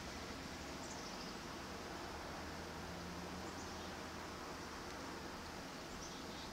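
Steady outdoor background noise, an even hiss over a low rumble, with a few faint, short, high chirps from small birds.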